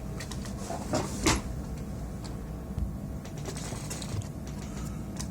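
Hands handling PS4 parts during reassembly: a few light clicks and knocks about a second in, then fainter scattered ticks, over a steady low hum.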